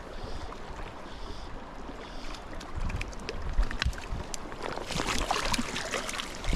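Small freestone trout stream running over rocks, with wind buffeting the microphone. In the second half a cluster of sharp crackles builds up and is densest about five seconds in.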